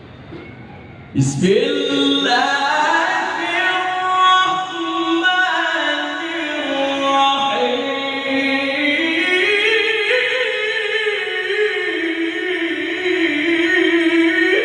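A male Qur'an reciter (qari) in melodic tilawah style, holding one long, unbroken phrase that starts about a second in, its pitch winding up and down through an ornamented melody.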